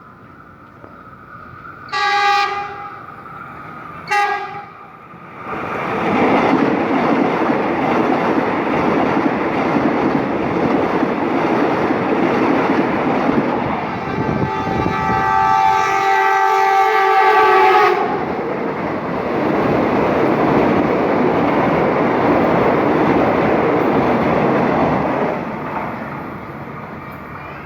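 A train horn sounds two short blasts about two seconds apart. A train then passes with a steady rumble and clatter of wheels on the rails, sounding one long horn blast of about four seconds midway. The rumble fades near the end.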